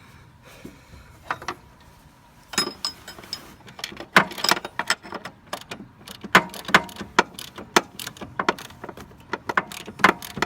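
Metal hand tools clicking and clinking on the motor mount bolts, a wrench or socket being worked in quick uneven strokes, several sharp metallic clicks a second after a quieter first couple of seconds.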